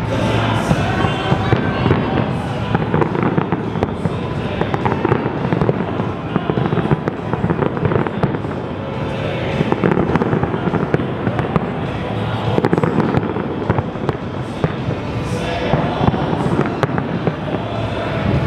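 Large aerial fireworks display: a dense, unbroken barrage of crackling and popping shell bursts.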